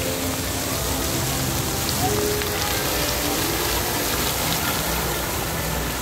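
Fountain jets spraying and water falling back into the pool: a steady splashing hiss.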